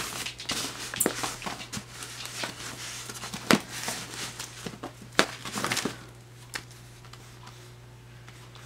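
Plastic cat-litter bag crinkling and crackling as a cat paws at it and pushes its head inside, in quick irregular rustles that die down about six seconds in. A faint steady low hum sits beneath.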